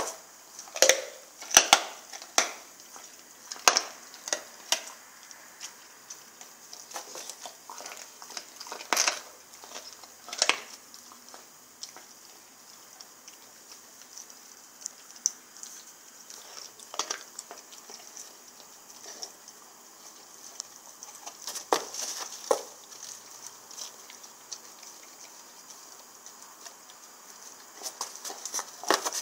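Rottweiler gnawing and chewing a raw lamb shank: irregular sharp clicks and wet crunches of teeth on meat and bone. They come thick in the first ten seconds, thin out in the middle, and pick up again in short bursts about two-thirds of the way in and near the end.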